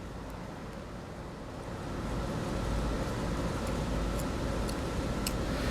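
Steady low rumble and hiss of background noise, growing a little louder about two seconds in, with a few faint, light clicks.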